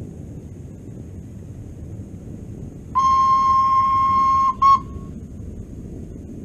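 Model train horn sounding one long steady blast of about a second and a half, then a short second toot, over the low rumble of the model train running on the track.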